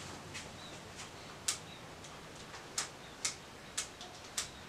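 Keys of a handheld calculator being pressed: about six short, sharp clicks at uneven intervals as a calculation is keyed in.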